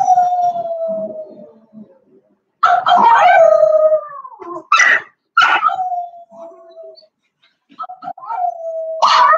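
A dog howling: a run of long, held notes, each starting sharply and sagging slightly in pitch, with short pauses between them.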